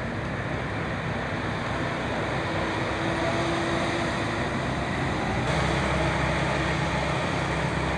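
Diesel engine of a telehandler running with a steady low drone. The sound grows a little fuller and louder about five and a half seconds in.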